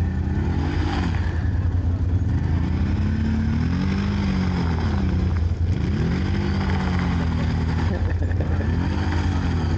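A quad bike (ATV) engine revving up and dropping back about four times as the machine spins circles in mud, over a steady low drone.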